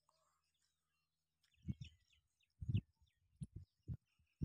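Faint bird chirps, with a series of dull low thumps starting about a third of the way in, the loudest near the middle.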